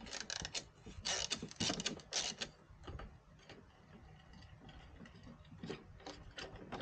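Hand ratchet clicking as a Torx screw holding a Jeep side marker light is backed out: a quick run of clicks for about the first two and a half seconds, then fainter scattered clicks.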